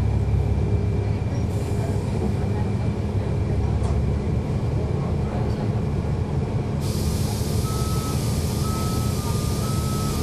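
Cummins ISL9 diesel engine of a NABI 40-SFW bus, heard on board, running steadily as a low hum. About seven seconds in, a loud hiss of released air starts, and soon after a beep begins, stepping back and forth between two close pitches several times.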